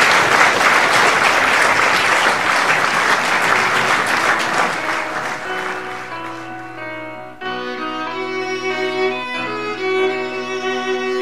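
Audience applauding, fading away over the first six seconds or so, while instrumental music with a bowed-string sound comes in and takes over, with a sudden jump in level about seven seconds in.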